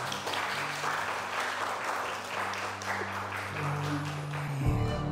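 Crowd applauding, with many hands clapping at once, over soft music with long held low notes; the music grows louder and fuller near the end.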